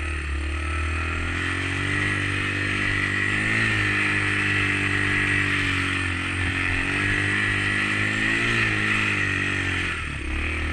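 Dirt bike engine running under load through snow, its revs rising and falling several times.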